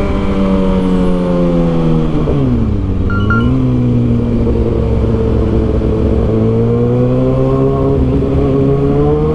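Kawasaki ZX-6R 636 inline-four engine running under way. The engine note drops sharply about two and a half seconds in, holds lower, then slowly climbs again near the end.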